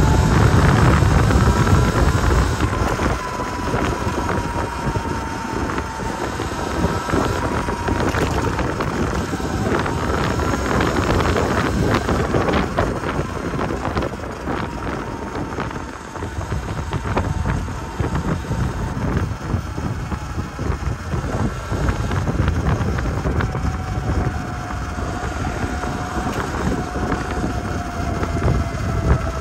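Sur-Ron electric dirt bike under way, its motor drive whining in a thin high tone that rises as it speeds up, holds steady at cruising speed, and drops lower near the end as it slows. Wind rushes over the microphone throughout.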